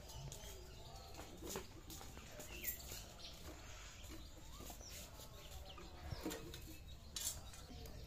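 Yard ambience: scattered bird chirps and chicken calls, with a few faint clicks and knocks.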